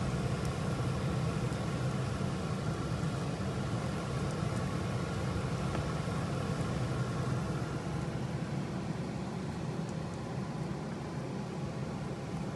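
Steady low whirring hum of a kitchen fan, with a faint sizzle of potato cutlets frying in shallow oil and a few light ticks of a wooden spatula against the pan.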